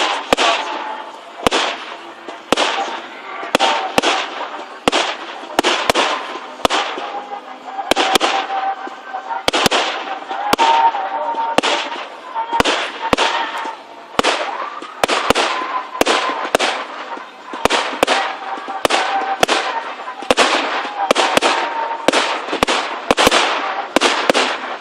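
Fireworks display: a rapid run of sharp bangs, about two a second, each trailing off in a short crackle.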